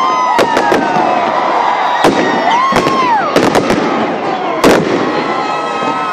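Aerial fireworks going off in an irregular string of sharp bangs, several close together at times, with crackling in between.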